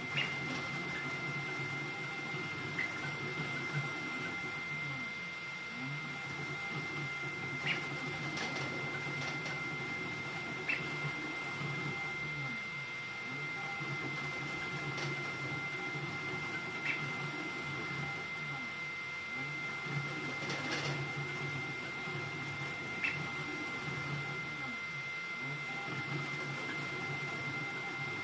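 Ender-3 V3 3D printer running a high-speed print. Its stepper motors whir in pitches that keep sweeping up and down as the print head moves, over a steady high whine, with a light tick every few seconds.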